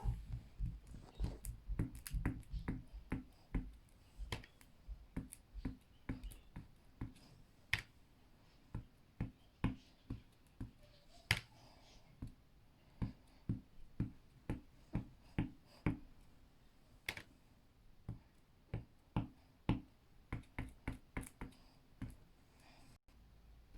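A long run of short, light taps and knocks on a hard surface at an uneven pace of about one to three a second, with a busier flurry in the first few seconds.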